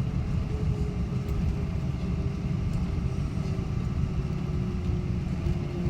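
Airliner cabin noise after landing: a steady low rumble with a faint engine tone that slowly falls in pitch.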